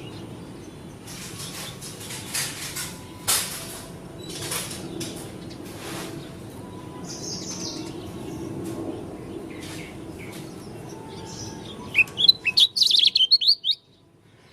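Pleci dakun white-eye (Zosterops) calling in short, scattered high chirps, then breaking into a loud, rapid twittering song burst near the end.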